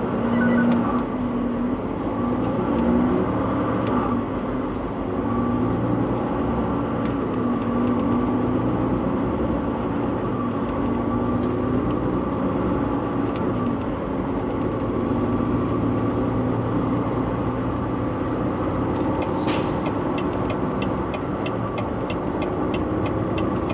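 Volvo VNL semi truck's diesel engine running steadily as the truck drives slowly through traffic. Near the end comes a quick run of light, evenly spaced ticks.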